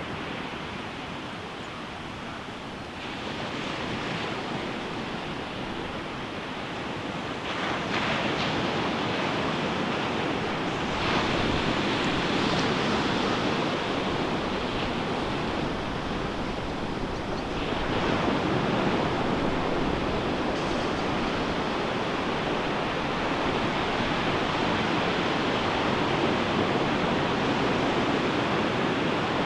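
Ocean waves breaking on a beach: a continuous rushing wash that swells each time a wave breaks, growing louder from about eight seconds in.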